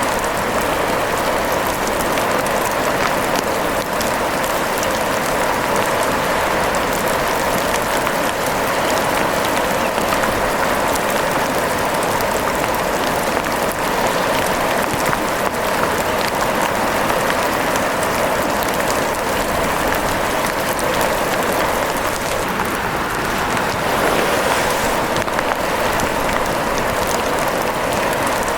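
Steady rain falling in a dense, even hiss of drops, with fine ticks of individual drops throughout.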